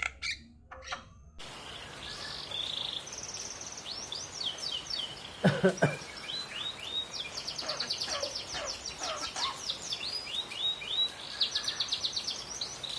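Javan myna singing: a string of chirps, whistled glides and fast rattling runs of repeated notes, with one loud, harsh cough-like call about five and a half seconds in.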